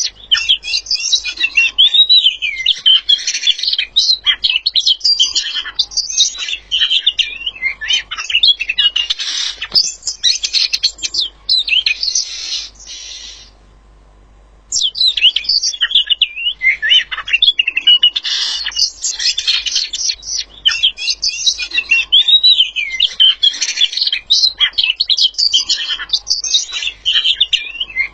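A songbird singing a fast, continuous, varied song of chirps and whistled glides, with a break of about a second midway.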